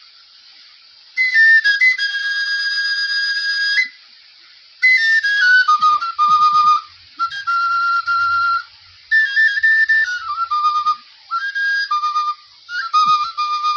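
Igbo oja, a small wooden notched flute, played in high, piercing phrases: notes stepping down and settling on long held tones, with short breaks between phrases.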